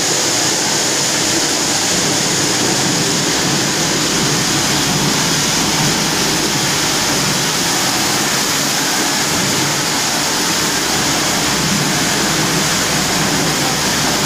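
Steady, loud hiss and hum of running grain-cleaning machinery: an ASM-50 AK aspiration separator and a chain-and-flight scraper conveyor at work on a ZAV grain-cleaning line.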